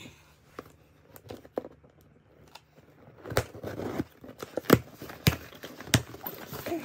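Packing tape peeled off a cardboard shipping box and the flaps pulled open: a few faint scratches at first, then from about three seconds in a run of sharp crackles and snaps of tearing tape and cardboard.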